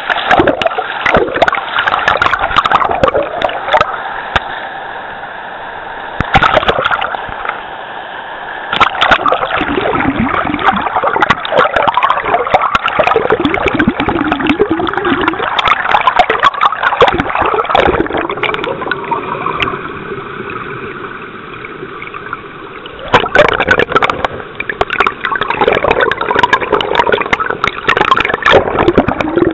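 Fast river water churning and gurgling around a camera held underwater, loud and uneven, with many scattered clicks.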